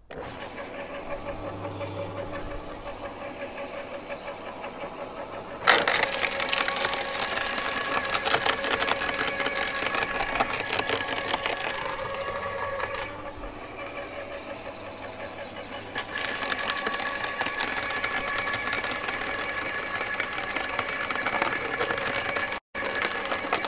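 Topshak WS1 electric garden shredder switched on and running with a steady motor hum. About six seconds in, branches fed into it are chewed up with loud, dense cracking and snapping of wood. This eases back to the bare motor hum for a few seconds and starts again at about sixteen seconds.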